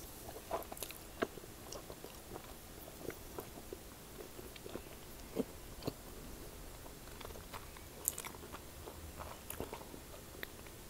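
A person chewing a mouthful of rice noodles, with faint, scattered wet mouth clicks and smacks.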